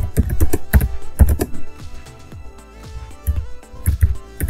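Background music with a beat, with clicks of computer keyboard typing.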